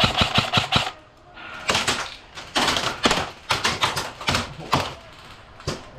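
Airsoft guns firing in rapid bursts of sharp clicks: a fast string right at the start, then several more bursts over the next few seconds.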